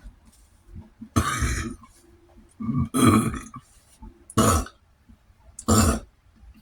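A man burping loudly four times over about five seconds, the first burp the longest. The burps are brought up by the water he has been drinking.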